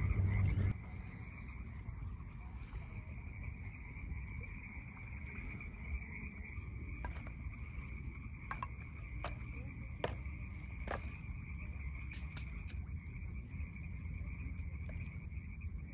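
Steady, high-pitched night chorus of calling frogs and insects, with scattered clicks and knocks of firewood sticks being handled and stacked for a campfire from about six seconds in.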